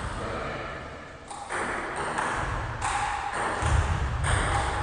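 Ping-pong balls clicking off paddles and the table in a string of irregularly spaced knocks, over the reverberant hum of a large gym hall.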